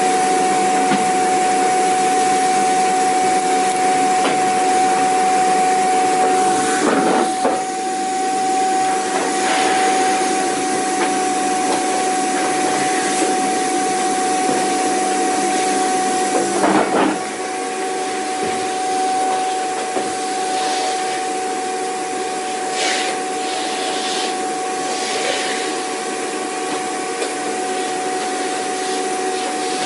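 Vacuum cleaner running steadily: a motor whine holding one pitch over an even rushing noise. Two brief bumps come about a quarter and a bit over halfway through, and after the second it runs slightly quieter.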